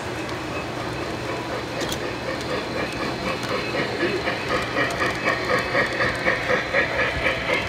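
Model Polar Express steam locomotive No. 1225 running past on its track, with a rhythmic beat of about three a second that grows louder about four seconds in as the engine comes alongside.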